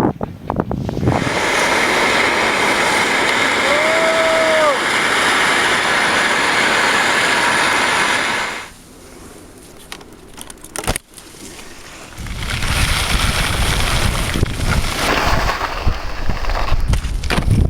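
Skis hissing and scraping over snow for about eight seconds, with a brief rising-and-falling tone about four seconds in. The sound then drops for a few seconds, with a sharp click near eleven seconds, before wind rumbles on the microphone as speed builds.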